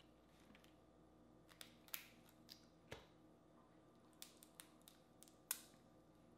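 Shell of a boiled crawfish being cracked and peeled apart by hand: a string of short, sharp cracks and snaps, the loudest about five and a half seconds in.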